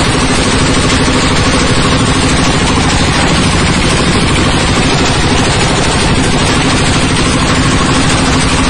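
Coconut husk decorticating machine (coir fibre and cocopeat separator) running, a loud steady mechanical din with a low hum as it shreds husks into fibre.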